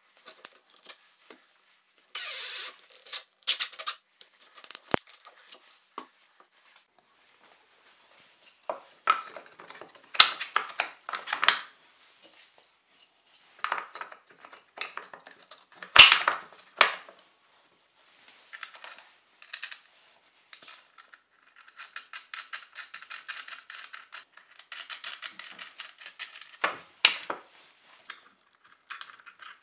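A cordless drill briefly drives a screw into plywood near the start. After that, plywood parts and bolts are handled, slid and knocked together, with scattered knocks, clicks and a stretch of rattling clatter.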